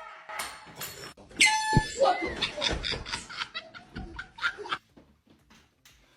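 The end of an air horn blast dies away at the start, then people laugh and chuckle. The laughter stops about a second before the end.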